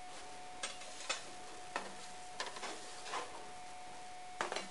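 Light clinks and taps of crockery being set down and handled on a steel kitchen counter, about six short knocks spread irregularly, over a faint steady hum.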